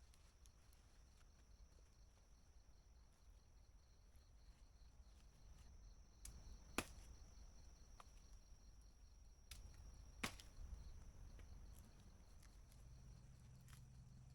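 Near silence broken by a few sharp pops from a wood campfire, the two loudest about seven and ten seconds in.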